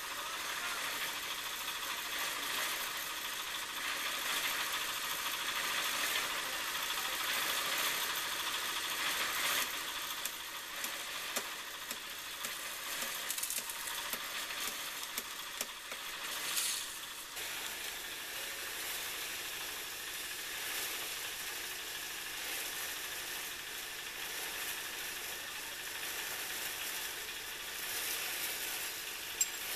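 A concrete mixer running, giving a steady churning hiss.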